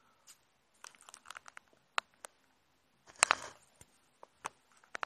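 A fan's retail box handled and turned over in the hands: scattered light taps, clicks and crinkles, with a louder cluster of scraping and clicking about three seconds in.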